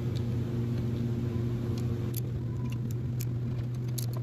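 Scattered light metallic clicks and ticks as a small torque wrench set to 80 inch-pounds is fitted onto and worked on the oil pump's cover bolts, over a steady low hum.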